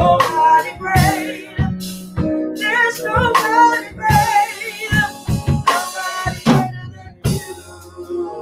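Live gospel worship music: a woman singing over electronic keyboard chords, with a drum kit keeping a steady beat of kick, snare and cymbals.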